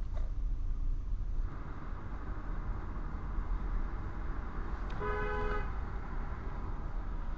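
Car horn sounding once, a short blast of about half a second, over the steady engine and road noise heard from inside a moving car.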